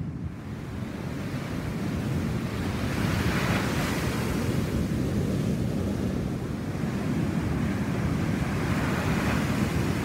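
Big ocean waves breaking and surf washing in, a steady rushing noise that swells about three seconds in and again near the end. Wind buffets the microphone, adding a low rumble.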